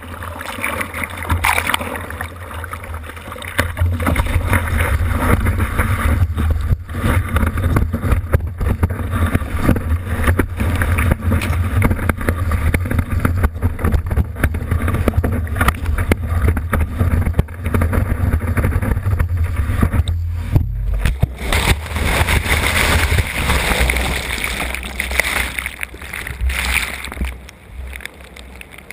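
Sea water rushing and splashing against a board-mounted action camera while a surfer paddles and rides a wave, with a heavy low rumble of water and wind buffeting the microphone and many sharp splash cracks. Near the end it grows quieter and muffled as the camera goes under water.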